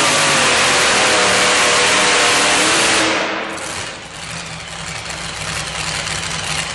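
Supercharged engine of a two-wheel-drive pulling truck running flat out under load, then cutting back sharply about three seconds in as the pull ends, and running at a low idle after that.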